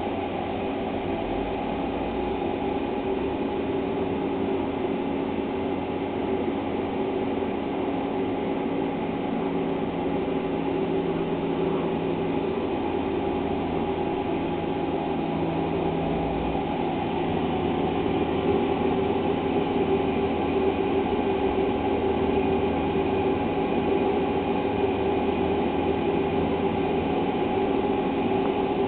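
A steady mechanical drone with several held tones over a noisy rumble, growing slightly louder about two-thirds of the way through.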